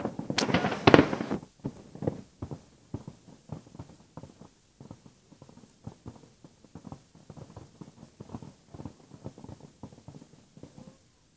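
Fireworks going off: a few loud bangs in the first second and a half, then a long scatter of fainter, irregular pops and crackles that thins out and dies away near the end.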